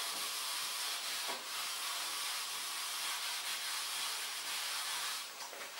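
Whiteboard eraser rubbing steadily back and forth across a whiteboard, wiping off marker writing.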